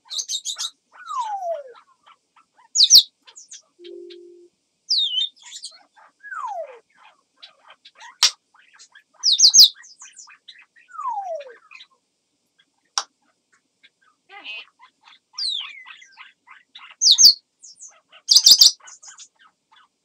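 African grey parrot calling: a string of falling whistled glides, short high squeaks and whistles, and sharp clicks. These are the crow-like special sounds the bird imitates.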